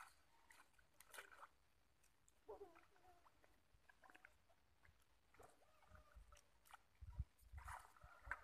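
Near silence: faint outdoor ambience with scattered small clicks, a brief faint falling call about two and a half seconds in, and low bumps near the end.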